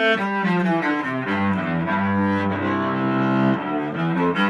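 Cello bowed in a short melodic phrase, changing note every fraction of a second with a longer held note in the middle.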